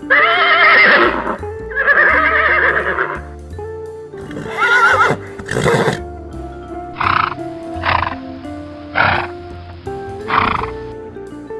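Horses whinnying repeatedly over background music: a few long wavering calls, then a string of shorter calls about a second apart, with one sharp snort-like burst between them.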